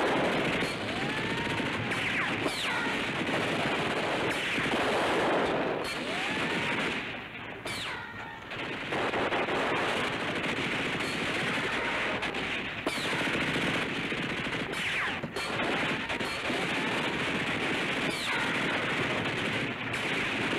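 Sustained battle gunfire: continuous machine-gun and rifle fire with rising and falling whines over it, easing briefly about eight seconds in before resuming.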